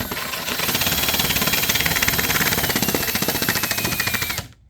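Power-driven wire brush scrubbing the plastic mower-deck grass chute, a loud rapid buzzing grind with a motor whine that sags slightly in pitch under load. It starts abruptly and stops abruptly near the end.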